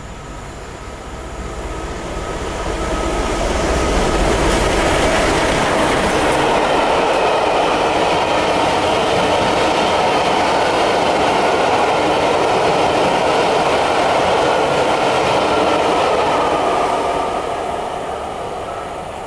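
Steam-hauled express behind LMS Princess Coronation Class Pacific 46223 Duchess of Sutherland running through the station at speed. The noise builds as the locomotive draws level in the first few seconds, stays loud and steady as the long rake of coaches runs past, and dies away near the end as the train recedes.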